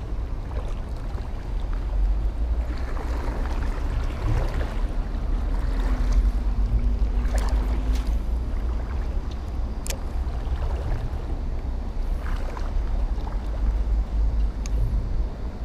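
Steady low rumble of wind on the microphone and road traffic from a bridge overhead, with a few sharp clicks from a spinning reel as a light jig is cast and retrieved.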